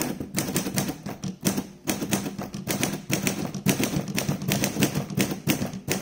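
1930s Corona Standard manual typewriter being typed on at a steady pace: a quick run of sharp typebar strikes, several a second, as a line of text is typed.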